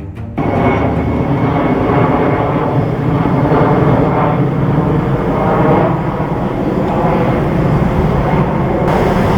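Boeing 747-8F freighter's four jet engines running loudly as it comes in to land, starting abruptly about half a second in.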